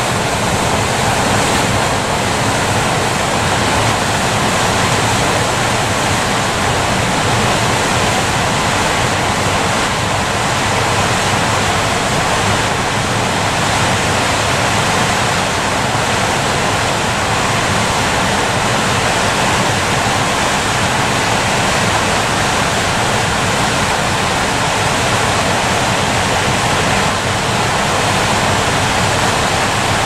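River water pouring over a low weir and rushing white through concrete blocks, a loud, steady rush of water.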